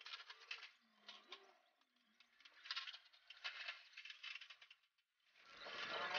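Aerosol spray-paint can hissing in short bursts, with a dove cooing faintly twice in the first couple of seconds. A louder sound swells near the end.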